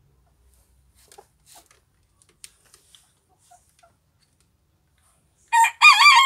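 Antwerp Belgian bearded bantam rooster beginning to crow near the end: a loud, high-pitched crow that starts in short pieces and then holds. Before it there are only a few faint clicks and rustles.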